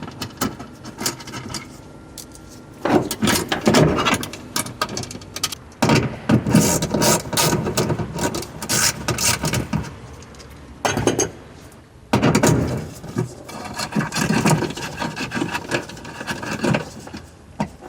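Metal hardware and tools being handled: irregular clinks, rattles and scrapes, with quieter stretches in between.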